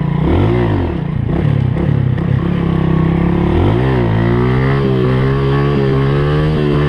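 Dirt bike engine revving in two quick surges, then held at steady higher revs from about four seconds in, while the rider struggles to get it into second gear.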